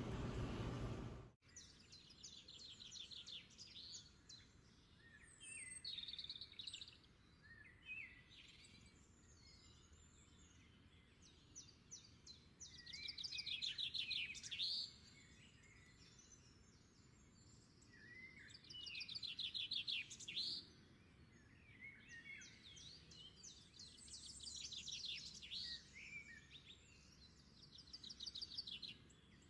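Faint, high-pitched bird chirps and rapid trills in repeated bursts of a second or two, starting abruptly about a second and a half in.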